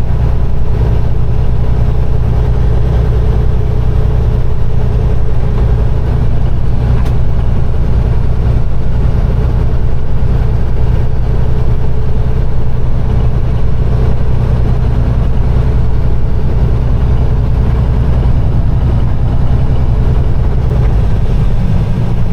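Peterbilt 389 semi truck's diesel engine running steadily under way, a deep, even drone that holds without change.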